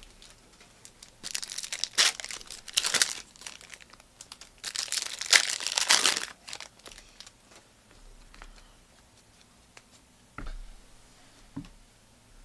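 Trading card pack wrappers being torn open and crinkled, in three loud bursts within the first six seconds, followed by quieter handling and two short knocks near the end.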